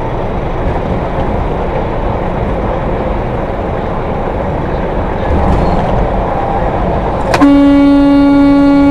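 Steady road and engine noise inside a semi-truck cab. About seven seconds in, a very loud, long, steady horn blast starts suddenly and is held, a warning to a tractor-trailer cutting in too close ahead.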